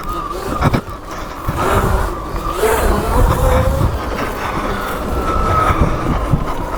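Sur Ron electric dirt bike riding a rough trail: the motor's whine rises and falls in pitch with the throttle, over wind buffeting and the rumble of tyres and suspension, with a few sharp knocks from the terrain.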